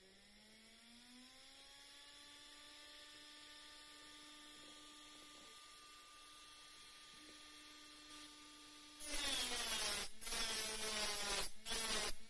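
Homemade disc sander made from a computer hard drive: its brushless spindle motor, run through an ESC and servo tester, spins up with a rising whine as the speed is turned up, then settles into a steady hum. About nine seconds in, a metal strip pressed against the spinning sanding disc gives a loud harsh grinding, broken by a few brief gaps as the strip is lifted off.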